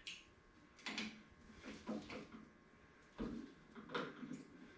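A drill bit and the small hard parts of a drill-bit sharpener being handled: about half a dozen faint, separate clicks and knocks.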